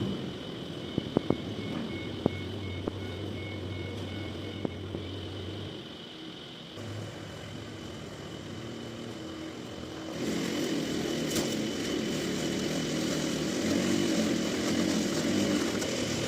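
Sawmill machinery running steadily with a thin high whine, a few sharp knocks in the first five seconds, and getting louder about ten seconds in.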